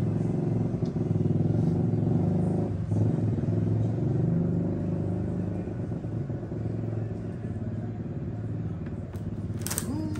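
A motor vehicle engine running steadily with a low hum, easing off and getting quieter after about four seconds. A sharp click sounds near the end.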